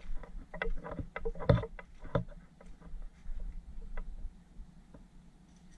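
Footsteps crunching on a dirt path littered with dry leaves and twigs: irregular crunches, thickest in the first couple of seconds and thinning out toward the end.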